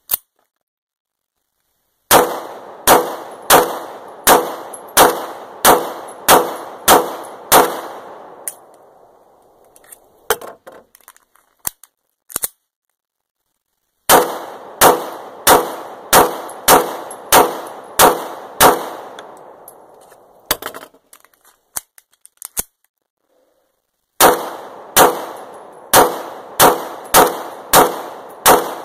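Lionheart LH9 9mm pistol fired in three strings of about eight or nine shots each, roughly one and a half shots a second, each shot with a short echo. A few soft clicks fall in the pauses between strings.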